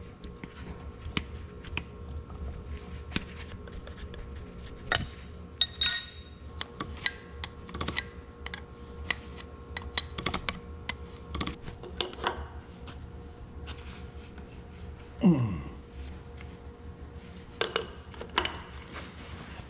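Steel wrench working a hydraulic line fitting loose on an Oliver 1855 tractor's hydraulic pump: a run of small metal clicks and taps, with a ringing metal clink about six seconds in. A short falling tone about fifteen seconds in is the loudest moment.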